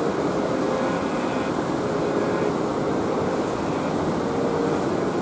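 A steady low drone with a faint, wavering hum and no sudden sounds.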